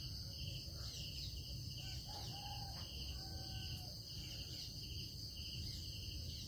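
Faint background of insects chirping steadily, pulsing about twice a second, with a few faint short tones near the middle.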